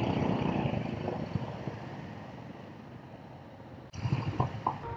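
Motorcycle riding noise on a helmet-mounted mic: wind rush over the KTM RC390's single-cylinder engine, gradually fading over about four seconds as the bike eases off. Near the end it cuts to a quieter stretch.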